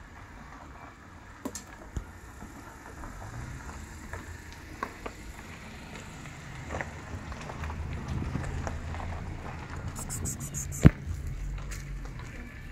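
A cat eating wet food, with small wet clicks and smacks of chewing and licking. A low background rumble builds in the second half, and a sharp click comes near the end.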